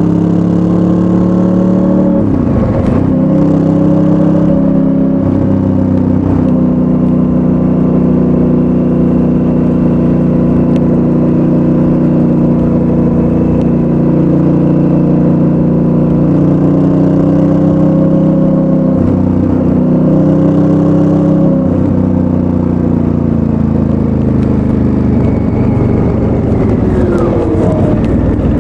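Honda Africa Twin's 998 cc parallel-twin engine through its stock exhaust, pulling at steady revs under way. The pitch dips briefly a few times, and the revs fall near the end.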